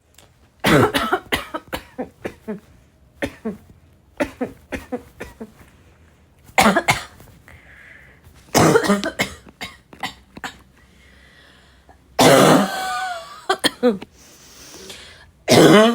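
A girl coughing in repeated raspy, barking coughing fits: short runs of several coughs in quick succession, with breaths between them and one longer bout about twelve seconds in.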